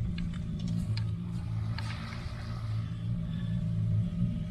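Small boat's motor running with a steady low hum while the boat moves along, with some wind noise over it.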